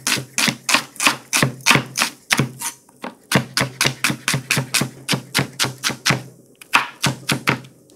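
Chef's knife rapidly dicing an onion on a cutting board: quick, even knocks of the blade on the board, about five a second, breaking off briefly twice.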